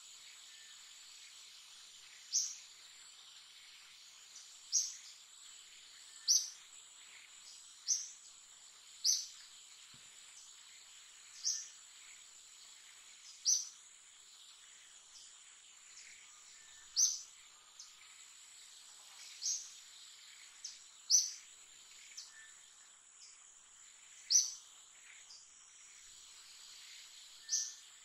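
Outdoor ambience: a steady high insect hum, with a short, sharp high-pitched chirp repeating every one to three seconds.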